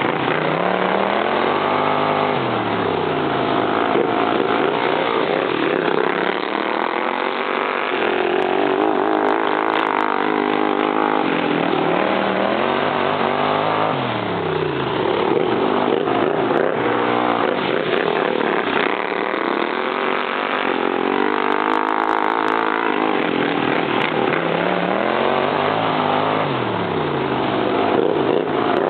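Several modified racing lawn mower engines running hard, their pitch rising and falling every five or six seconds as the mowers speed down the straights and back off for the turns.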